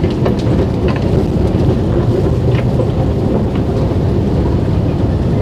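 Steady low rumble on a long metro-station escalator going down, with a few faint clicks.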